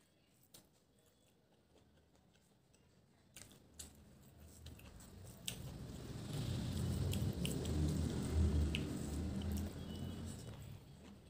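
Close-miked eating sounds: fingers working rice on a plate and chewing, faint at first with a few small clicks, then the chewing growing louder for several seconds from about halfway through before fading.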